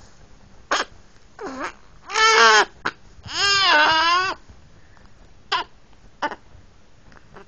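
A month-old baby vocalising: two loud, pitched cry-like calls, the second longer, about two and three and a half seconds in, among a few short squeaks and grunts.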